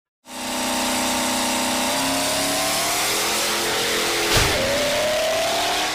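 Engine running steadily, then a thud a little past four seconds in, after which the pitch climbs as it revs up. The sound fades in at the start and fades out at the end.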